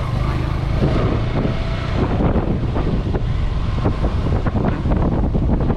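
Wind buffeting the microphone on a moving motorcycle, gusty and rough, with the bike's engine running steadily underneath.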